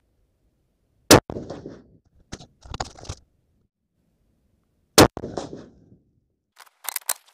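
Thompson/Center Compass .308 bolt-action rifle firing twice, about four seconds apart, each shot trailing off over most of a second. After each shot comes a quick run of metallic clicks as the bolt is worked to eject the case and chamber the next round.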